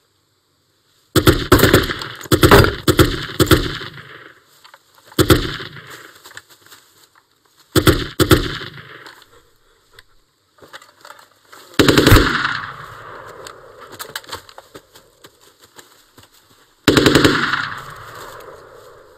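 Bursts of automatic gunfire: a cluster of rapid bursts in the first few seconds, then shorter bursts every few seconds, each trailing off with an echo.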